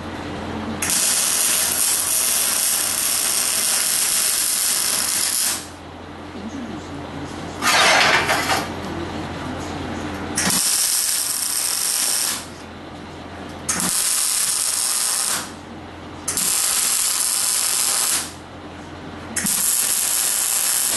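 Wire-feed (MIG) welder arc crackling in five separate runs of about two to four and a half seconds each, the first the longest, over a steady low hum. About eight seconds in there is a short, louder, harsher burst.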